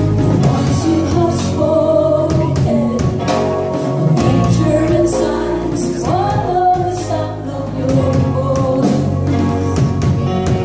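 Live worship band playing a contemporary worship song: female voices singing over keyboard, electric bass and drum kit.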